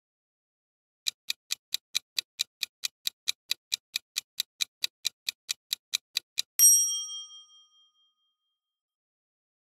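Quiz countdown-timer sound effect: a clock-like ticking at about four to five ticks a second, starting about a second in, then a single bright ding that rings out and fades over a second or two, marking time up and the answer reveal.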